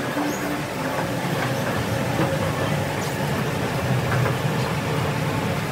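Escalator running: a steady mechanical rumble with light clicking, heard from on the moving steps.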